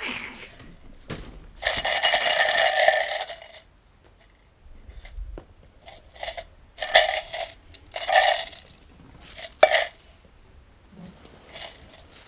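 Coins rattling as a cup of change is shaken: one long shake about two seconds in, then several shorter shakes.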